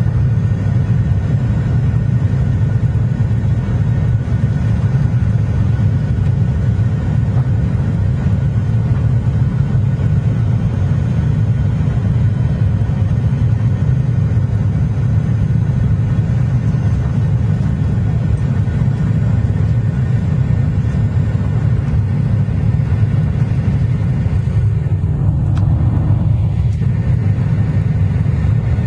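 Cabin noise of a Boeing 737-800 climbing after takeoff: a steady low rumble of its CFM56-7B engines and airflow, with faint steady high tones over it, heard inside the cabin over the wing.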